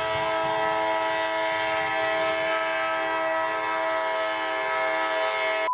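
Train air horn held in one long continuous blast, several tones sounding together as a chord, steady in pitch and loudness.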